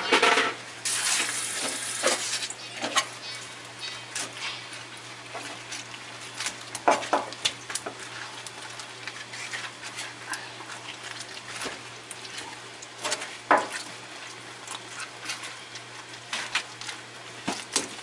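Heavy kitchen knife chopping and scraping on a plastic cutting board as red gurnard are cut up, a series of sharp knocks at irregular intervals. A rush of hiss in the first couple of seconds, and a steady low hum underneath.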